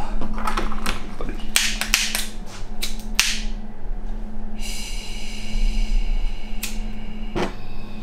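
Kitchen blowtorch being handled: a run of sharp clicks and knocks, then a steady high hiss of gas for about two and a half seconds in the second half, with a couple more clicks near the end.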